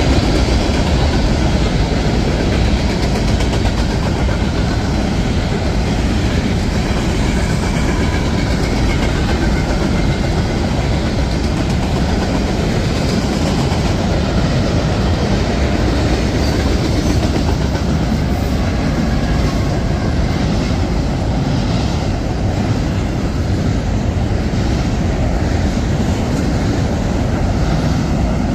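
Freight train cars rolling past close by as two freight trains meet: a steady loud rumble of steel wheels on rail, with wheel clicks over the rail joints becoming more distinct in the second half.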